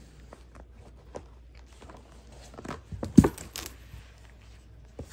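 Rustling and scraping of a hand rubbing a cat's fur close to a phone's microphone, with scattered small clicks and one louder short knock about three seconds in.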